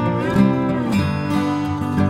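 Background music: acoustic guitar strumming, with some sliding notes.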